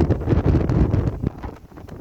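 Strong wind buffeting the microphone in gusts, a low rumbling blast that eases off about a second in.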